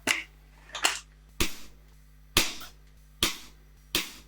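Six sharp, loud cracks at uneven intervals under a second apart, each with a short fading tail, over a faint steady hum.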